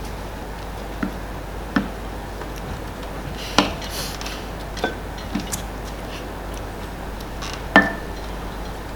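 A spoon clinking and scraping against serving bowls as Eton mess is scooped out: about six sharp, irregularly spaced clinks, a few of them ringing briefly.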